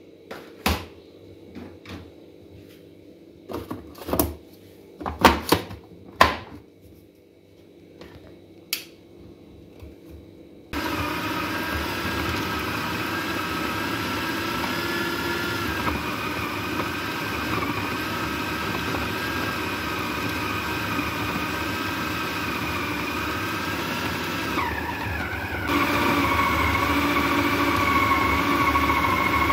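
A few sharp clicks and knocks, then about ten seconds in a food processor motor starts and runs steadily with a whine, grinding raw minced meat, onion and spices into a fine kabab paste. About 25 seconds in the whine briefly dips and the motor then runs a little louder.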